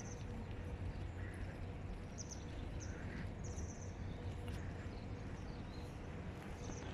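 Outdoor ambience while walking on asphalt: a steady low rumble with small birds chirping now and then, and faint footsteps.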